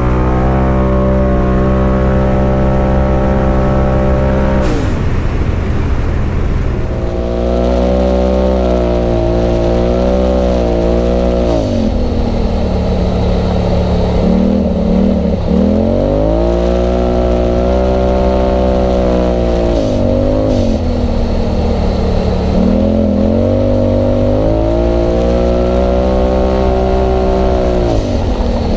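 Polaris RZR Turbo's turbocharged twin-cylinder engine, breathing through an aftermarket Agency Power exhaust, as the car is driven hard on a dirt trail. The revs climb and hold as the throttle opens, then fall away when it closes, over and over every few seconds.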